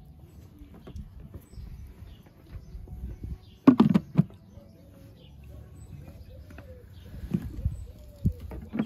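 A pigeon cooing: a run of short, low, arching hoots through the second half. Before that, a few loud knocks come in quick succession just before four seconds in.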